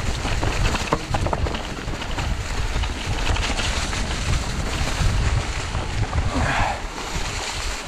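Wind buffeting the microphone over the rumble and rattle of an e-mountain bike riding fast down a trail covered in wet fallen leaves, with scattered knocks from the bike. About six and a half seconds in there is a short, brighter swish.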